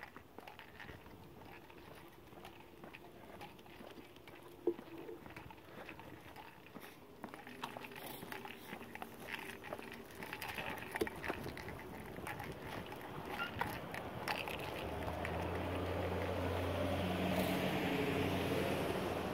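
Footsteps on a concrete sidewalk, with small scattered ticks. In the last few seconds a motor vehicle's engine hum and tyre noise grow louder.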